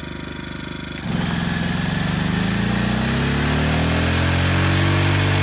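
Small portable inverter generator's engine running steadily, then, about a second in, an 1875-watt hair dryer load comes on with a rush of air and the engine speeds up, its pitch climbing over the next few seconds: the generator is straining near its limit, which the owner says is overloading it.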